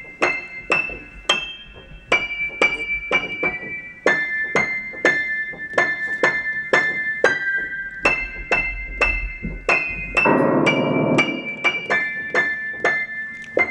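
Upright piano played one-handed high on the keyboard: a quick tune of single struck notes, about three a second, played as the call for the dog to come downstairs. About ten seconds in, a brief lower sound joins the notes for about a second.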